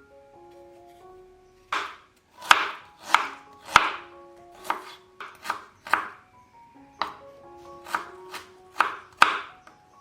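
Food being chopped with a knife on a cutting board: about a dozen sharp, irregular strokes, starting about two seconds in, over soft background music.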